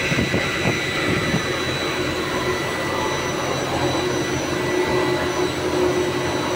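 Electric steam boiler running: a steady rushing noise with a low hum and a faint high whine.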